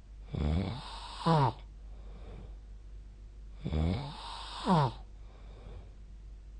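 A sleeping person snoring, two breaths. Each is a rough snore followed by a short tone that falls steeply in pitch, and the breaths come about three and a half seconds apart.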